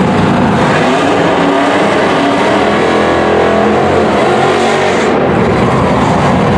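Dodge Challenger drag car doing a burnout: its V8 engine revving hard while the spinning rear tyres smoke on the pavement, the revs dipping and climbing again about halfway through.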